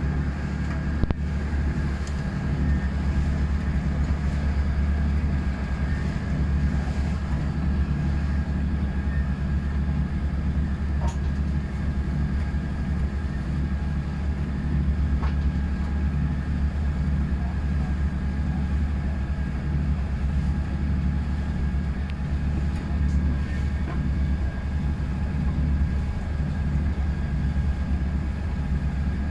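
Nor Star 950 motor cruiser's engine running steadily under way, a constant low drone heard from inside the wheelhouse, with a few faint knocks here and there.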